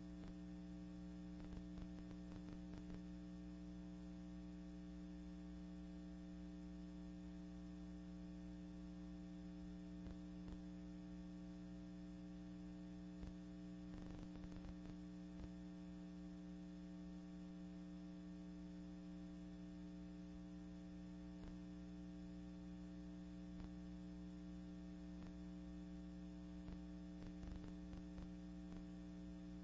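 Steady electrical hum with faint static and a few soft clicks, one small cluster about halfway through: the background noise of a silent archival film transfer.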